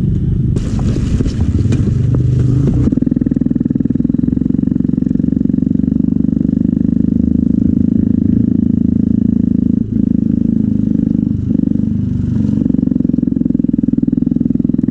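2001 Yamaha YZ250 single-cylinder two-stroke dirt bike engine running steadily at idle. It is noisier and rougher for the first couple of seconds, then settles, and briefly stumbles twice near the middle.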